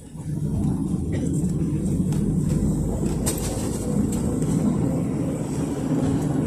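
Inside a PAZ 32054 bus under way: its ZMZ-5234 petrol V8 engine pulls steadily with a low drone, mixed with road noise. The sound comes back up right at the start after a brief dip, then holds steady.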